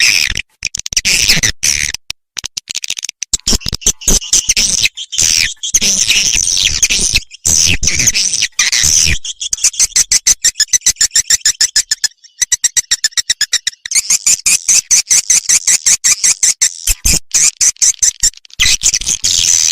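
Swiftlet call recording, as played to lure swiftlets into a swiftlet house. Stretches of dense, high twittering chirps alternate with trains of rapid, evenly spaced clicks, about eight to ten a second, with a few short breaks.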